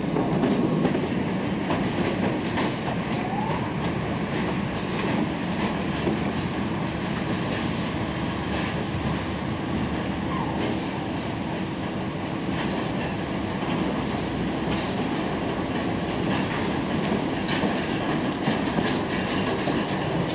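An old electric railcar running along the track: steady rolling rumble with wheels clicking over the rail joints, and a faint brief wheel squeal or two.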